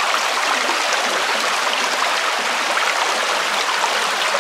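Shallow woodland stream running over stones, a steady babble of flowing water.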